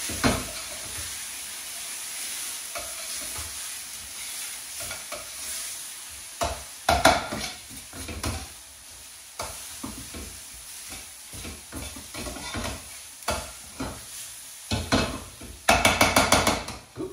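Onion and spice masala sizzling in oil in a frying pan, with tomato purée and water just added, while a utensil stirs and scrapes the pan in short bursts. The stirring is loudest near the end.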